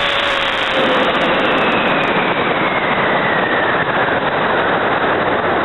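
Steady roar of a CTI J453 White Thunder solid rocket motor burning during boost, mixed with air rushing past the airframe, heard from a camera riding on the rocket. A faint whistle slides slowly down in pitch over the first few seconds.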